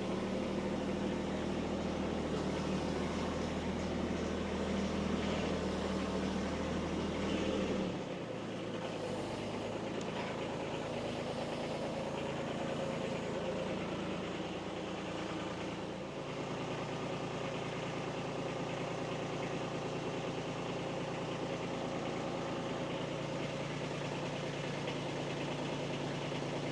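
Kubota B2301 compact tractor's three-cylinder diesel engine running steadily while the tractor is backed up. Its note drops about eight seconds in and shifts again about sixteen seconds in.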